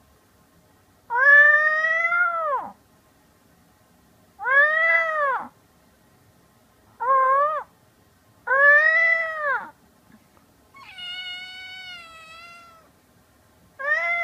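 A run of six meows, each about a second long and rising then falling in pitch, traded between a person imitating a cat's meow and a tabby kitten. About eleven seconds in comes a flatter, steadier, quieter meow lasting about two seconds.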